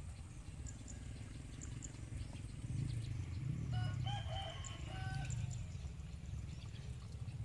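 A rooster crows once, faintly, about four seconds in: a wavering start, then a held final note. Under it runs a steady low rumble.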